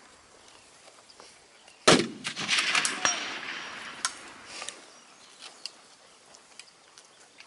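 A single precision rifle shot about two seconds in, followed by a sharp metallic click about two seconds later and a few small clicks and clanks from the shooter's gear.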